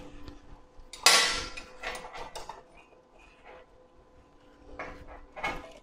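Pliers clinking and scraping on a steel rod and steel leaves as the leaves are bent by hand: a few irregular metallic clinks, the loudest about a second in.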